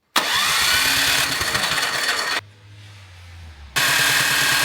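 Snowblower's small engine being cranked over without catching, in two bursts of chugging with a short, quieter pause between them: the engine won't start.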